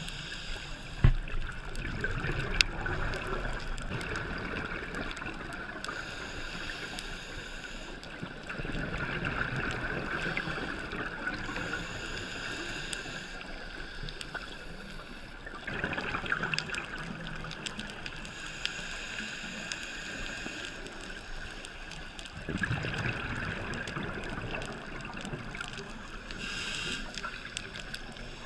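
Underwater sound of a scuba diver breathing through a regulator: a rush of exhaled bubbles about four times, with a thinner hiss between them. A sharp knock about a second in.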